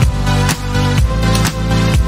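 Electronic dance-style intro music with a steady beat, about two beats a second, over sustained bass and synth tones.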